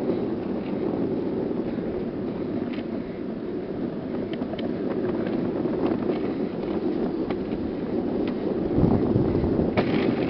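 Office chair's caster wheels rolling fast over rough asphalt: a steady rumbling rattle with scattered clicks, and a louder knock near the end.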